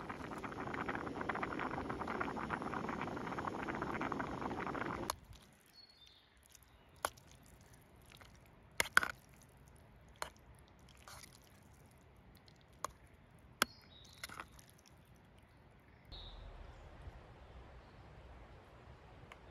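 A dense, steady hiss for about five seconds that cuts off suddenly. Then a run of sharp metallic clinks, a metal utensil knocking against a metal mess tin as spaghetti is stirred and lifted out. A bird chirps faintly near the end.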